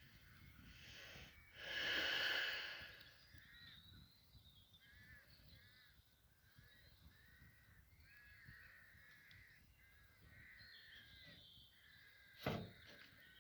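A crow caws once, about two seconds in, the loudest sound here; smaller birds chirp again and again after it, and a single sharp crack comes near the end.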